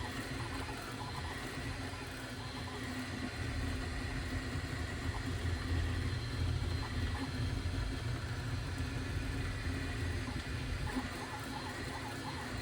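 3D printer running: a steady mechanical whir of fans and motors with a low hum and a few steady tones.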